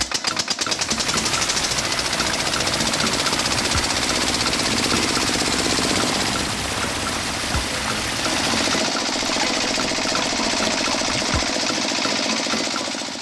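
A small motor on a home-made miniature construction machine running steadily with a fast, even mechanical rattle. It shifts slightly in tone about halfway through and fades out at the very end.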